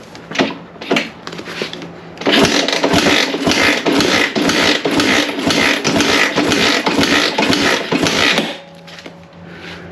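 A few tool clicks, then from about two seconds in the Kawasaki KLX engine is turned over for about six seconds without starting, a fast rhythmic chugging for a compression test. It stops suddenly, leaving a low steady hum.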